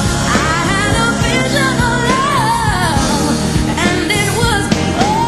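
Woman singing live with a backing band. Her voice slides through quick ornamented runs and settles on a long held note near the end.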